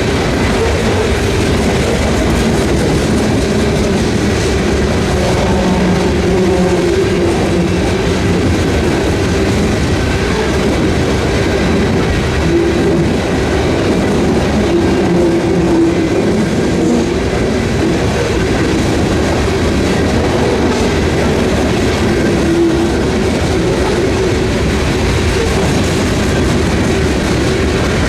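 Freight train cars rolling past, a loud steady rumble of wheels on rail with faint clacking and wavering tones that come and go.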